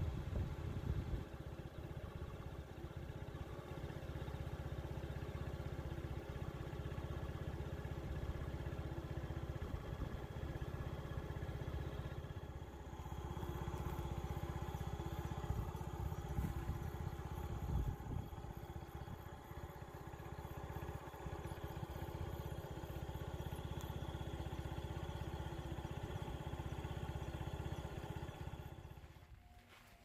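Outdoor ambience: a steady low rumble, with a faint high hiss joining about halfway through.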